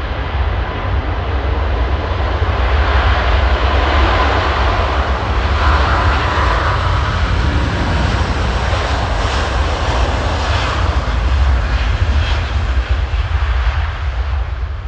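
Airbus A350's Rolls-Royce Trent XWB jet engines running at high thrust as the airliner rolls past along the runway. A loud, continuous jet roar over a deep rumble, with a thin whine in the first few seconds; it builds early on and eases a little near the end.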